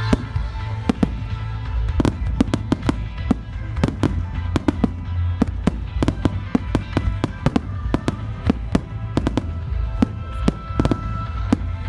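Aerial firework shells bursting in quick, uneven succession: dozens of sharp bangs, with music playing underneath.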